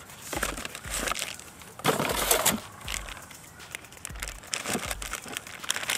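Rustling and crinkling as a small cardboard box is opened and a battery wrapped in a plastic bag is pulled out, loudest about two seconds in.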